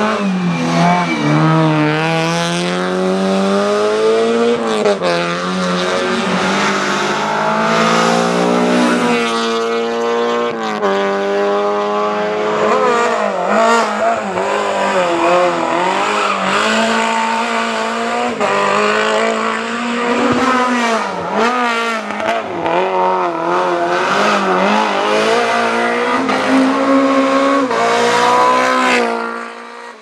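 Rally-prepared small hatchback race cars, a Renault Clio Mk1 among them, driven flat out through hairpin bends. The engines rev hard, the pitch climbing through each gear and dropping at each shift or lift, over and over.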